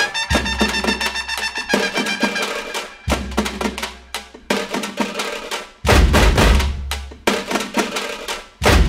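Background music with a steady, fast drum beat and a deep bass hit about every three seconds, with sustained melodic tones over it.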